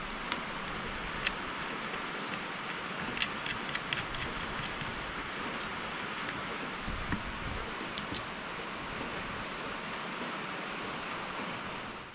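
Steady hiss of light drizzling rain, with a few faint scattered clicks of metal parts and tools being handled.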